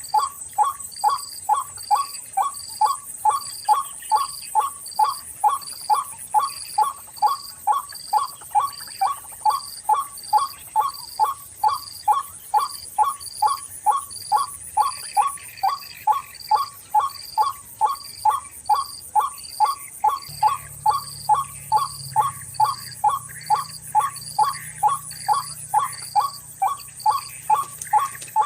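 White-breasted waterhen call played back from an MP3 as a lure: one call repeated steadily and monotonously, about twice a second, over a high, steady insect trill. A low hum joins about two-thirds of the way through.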